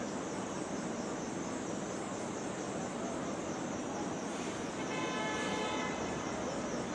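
Steady city street noise of traffic and crowds, with a vehicle horn sounding once for about a second and a half, nearly five seconds in.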